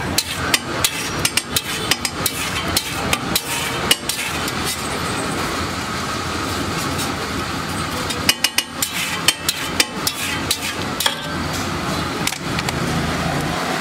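Long flat metal spatula striking and scraping the egg mixture on a large iron tawa, a quick run of sharp metallic taps in the first few seconds and again about eight seconds in.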